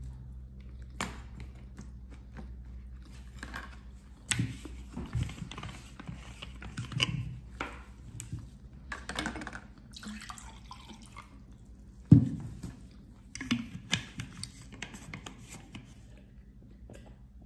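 Someone drinking water: liquid and gulping sounds with scattered small clicks, and a sharp knock about twelve seconds in.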